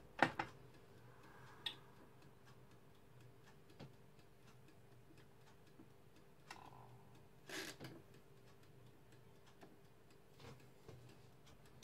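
Multi cooker heating with a faint steady hum and light ticking. A spatula clicks against the pot near the start, the control button gives a short beep about six and a half seconds in, and there are a couple of soft knocks just after.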